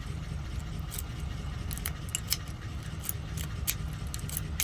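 Scattered small metallic clicks and ticks from handling an ignition lock cylinder and its key, over a steady low hum.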